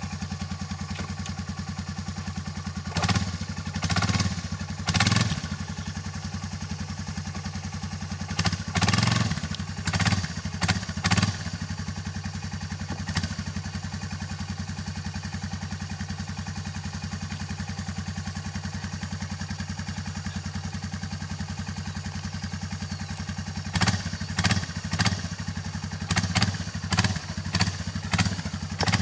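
Yamaha Bruin ATV's single-cylinder four-stroke engine running steadily at idle, with short louder bursts of noise in clusters: a few seconds in, around ten seconds, and again near the end.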